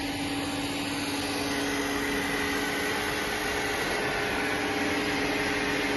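Steady hum of a CNC cutting machine running, with two held low tones and a higher whine that comes in about a second and a half in.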